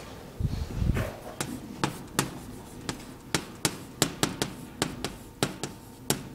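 Chalk writing on a chalkboard: an irregular run of sharp taps and clicks, about three or four a second, as letters are written. A couple of low thuds come about half a second to a second in.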